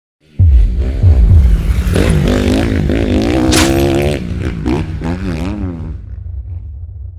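2023 KTM 300 SX single-cylinder two-stroke engine being revved, cutting in suddenly and then blipped several times, the pitch rising and falling quickly, before easing back and fading near the end.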